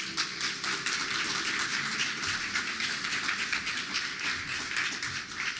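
Congregation applauding after a hymn, many hands clapping at once, fading near the end.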